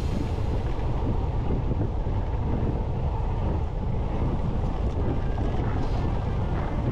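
Wind rumbling steadily over the microphone of a mountain biker's camera while riding, with a few faint rattles near the end.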